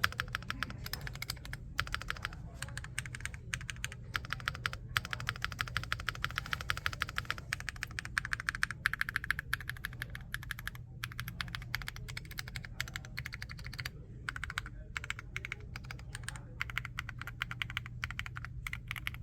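Fast, continuous typing on a stock, unmodified Finalkey V65 mechanical keyboard: a dense run of key clicks with a few brief pauses. A steady low hum runs underneath.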